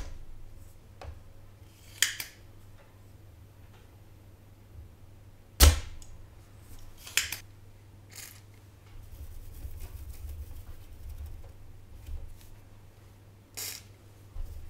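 Sharp snaps of a desoldering tool clearing solder from a motherboard's capacitor through-holes: two loud ones, at the start and about six seconds in, with softer clicks between and near the end.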